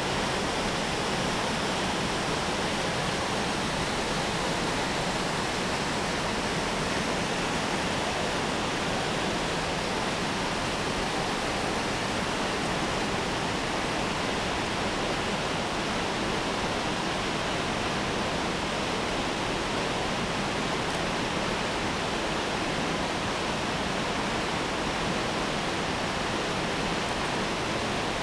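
Waterfall pouring over a concrete dam wall: a steady, even rush of falling water that does not change in level.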